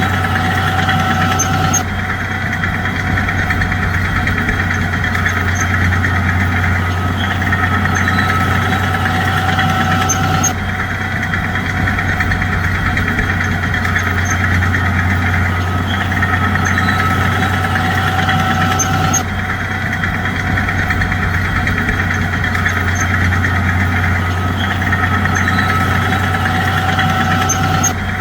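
Heavy diesel engine of a bulldozer running steadily under load, a constant low drone. The same stretch of sound repeats about every nine seconds with abrupt joins, as in a looped recording.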